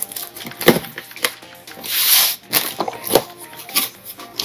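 A cardboard box being opened: packing tape slit and torn with a knife, giving a tearing hiss about two seconds in, with several knocks as the box is handled and its flaps pulled open. Soft background music plays underneath.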